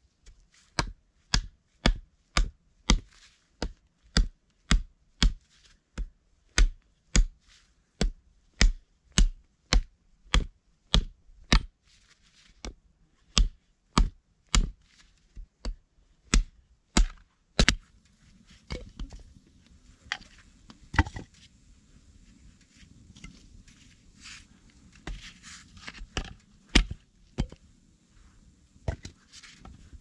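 Hatchet chopping firewood, strokes falling evenly a little under two a second. About eighteen seconds in the rhythm breaks into fewer, irregular knocks over a low steady noise.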